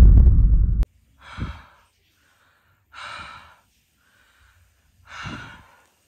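A loud, deep droning sound cuts off suddenly just under a second in. Then a person takes three audible breaths, about two seconds apart, in a quiet room.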